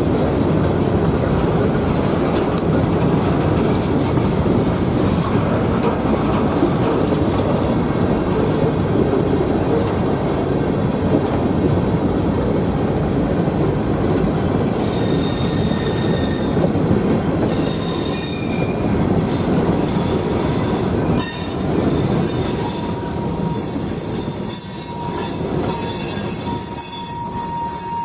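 Freight train of covered hopper cars rolling past: a steady, heavy rumble of steel wheels on the rails. From about halfway, high-pitched wheel squeals cut in, becoming a continuous squealing whine near the end.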